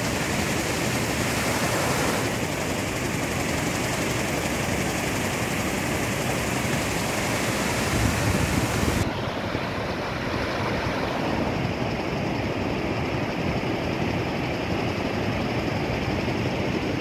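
Water-fountain jets splashing into a pool, a steady rush of spray. The sound turns duller about nine seconds in, as the jets die down.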